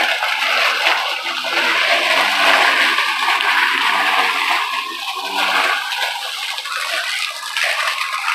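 Ryobi 40V brushless cordless electric lawn mower running, its spinning blade giving a loud, steady rushing whir as it cuts wet grass and leaves. The motor's hum dips lower in pitch a few times as it takes on load.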